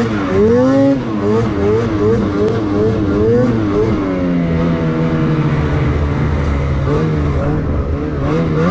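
Lynx Boondocker snowmobile's 850 E-TEC two-stroke engine under way on snow. The revs dip and climb at first, then rise and fall about twice a second, settle into a steadier, slowly falling note around the middle, and start rising and falling again near the end.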